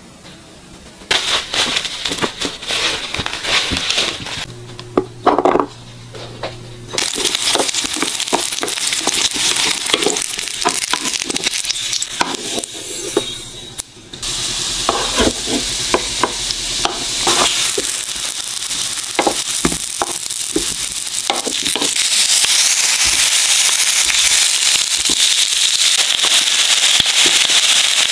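Oil sizzling and crackling in a nonstick frying pan as abalone and king oyster mushroom slices fry in olive oil. The sizzle grows denser and steadier about three-quarters of the way through.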